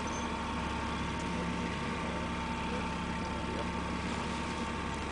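Boat engine idling steadily: an even low hum with a steady higher whine above it.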